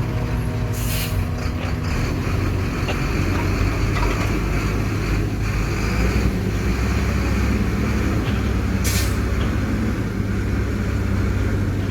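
Heavy diesel machinery running with a steady low rumble. Two short hisses of compressed air break through, about a second in and again near the end.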